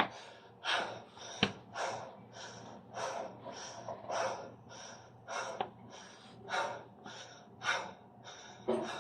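A man breathing hard and fast after a set of 8-count body builder burpees, in short puffs about two a second as he catches his breath. One sharp click comes about a second and a half in.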